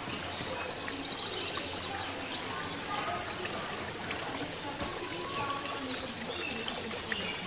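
A steady rushing hiss of background noise.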